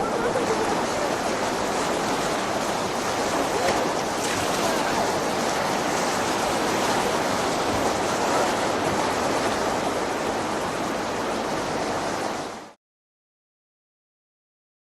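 Rushing whitewater of river rapids, a steady rush of water noise that cuts off abruptly into silence near the end.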